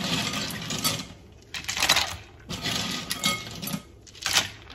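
Ice cubes clinking against a glass bowl as they are grabbed by hand and dropped into a tub of drink. They come in three bursts of about a second each, with a sharp clink near the end.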